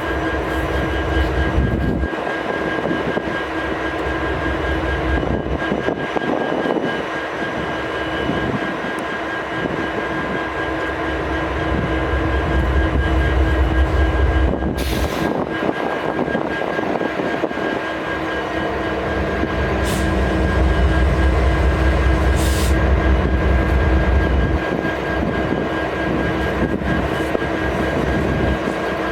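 Idling diesel-electric freight locomotives: the low drone of an EMD 710-G3B prime mover on an SD70MACe with the shaker sound of a GE locomotive air compressor running, a deep rumble swelling in and dropping out several times over a steady hum. A few brief hisses come in the middle.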